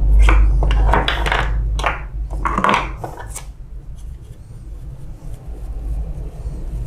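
Plastic parts of a photocopier's waste-toner unit being pulled apart and handled: a quick series of short scrapes and knocks over the first three and a half seconds, then quieter handling.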